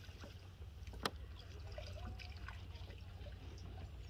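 Faint water dripping and trickling as a wet cast net is gathered and lifted in shallow river water, with one sharp click about a second in, over a steady low rumble.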